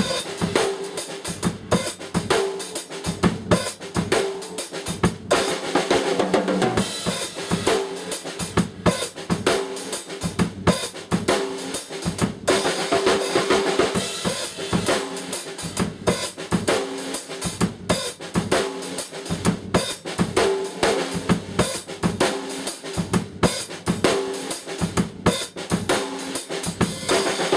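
Drum kit played in a steady groove, with bass drum, snare and cymbals sounding together in a repeating pattern.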